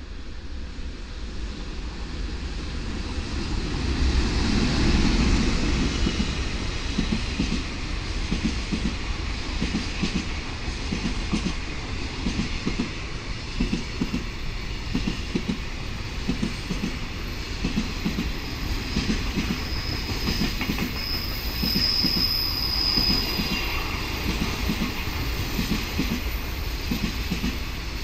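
A JR Freight EH500 electric locomotive passes, followed by a long train of container wagons. The passing is loudest a few seconds in as the locomotive goes by, then the wagon wheels click over rail joints in a steady rhythm. A high wheel squeal comes briefly about twenty seconds in.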